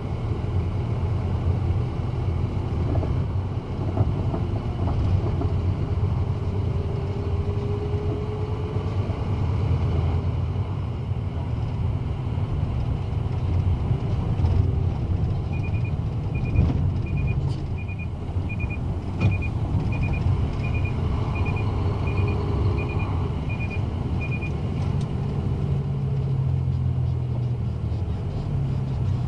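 Heavy truck's diesel engine and road noise heard from inside the cab while driving, a steady low hum. About halfway through, a run of about a dozen short electronic beeps, roughly two a second, sounds for some nine seconds.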